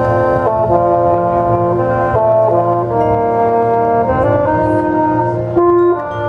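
High school marching band's brass section playing sustained chords that change every second or so, with a short louder held note near the end.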